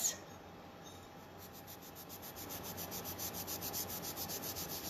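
Wet microfibre cloth scrubbed back and forth over a ceramic bathroom tile with cleaning paste, rubbing writing off it. The quick, even strokes start about a second in and grow a little louder.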